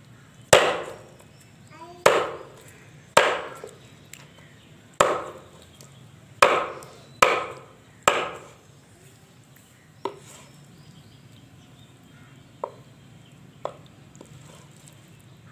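Kitchen knife chopping raw chicken on a thick wooden chopping block: seven loud chops, irregularly spaced, in the first eight seconds, then a few lighter taps.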